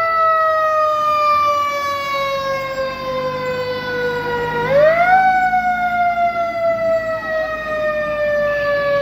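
Fire truck siren winding slowly down in pitch, spun quickly back up about five seconds in, then winding slowly down again.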